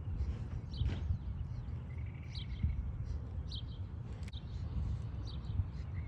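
Birds chirping now and then in short high notes over a steady low rumble.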